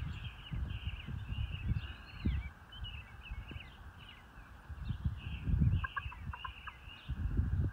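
Chickens foraging and calling. A quick run of short clucks comes about six seconds in, over continual high-pitched chirping and a low, uneven rumble.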